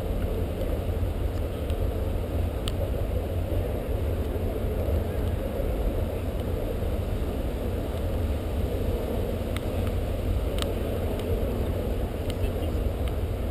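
Steady low outdoor rumble, with a few faint clicks about three, ten and eleven seconds in.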